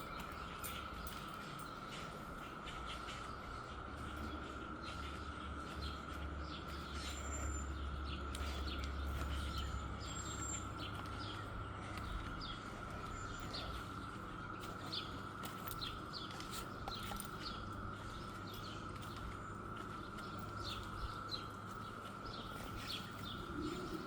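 Cicada chorus as one steady high drone, with frequent short bird chirps over it. A low rumble comes in for a few seconds near the middle.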